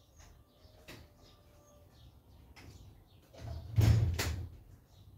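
Small birds chirping here and there in the background. About three and a half seconds in, a loud rumbling thud lasts roughly a second and is the loudest sound.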